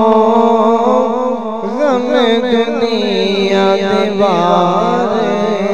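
A male voice sings a long, wavering melismatic phrase in a noha, a Karbala lament, over a steady held drone.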